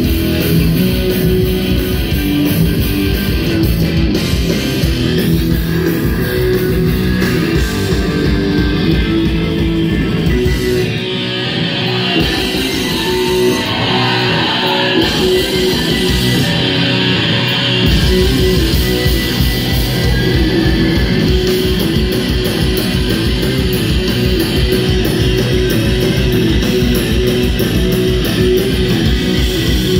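Rock band playing live: electric guitars, bass, keyboard and drums. About eleven seconds in, the bass and drums drop out for a few seconds while the guitars and keyboard carry on, and the full band comes back in about eighteen seconds in.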